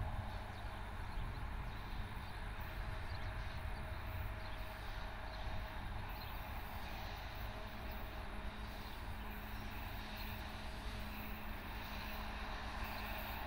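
Distant 2TE116 diesel locomotive running as it comes down the line, heard as a steady faint engine drone with a low hum, over an uneven low rumble of wind on the microphone.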